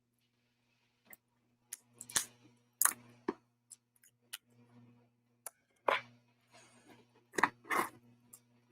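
A razor blade cutting open the plastic wrap on an album box: a string of short, sharp scrapes and clicks, a few of them louder, with crinkling plastic.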